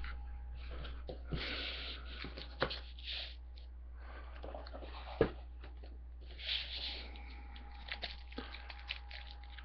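Paper-and-foil rustling and crinkling as a trading-card pack wrapper is torn open and cards are handled, in two spells of rustling, with a few sharp taps, the loudest about halfway through, over a faint steady hum.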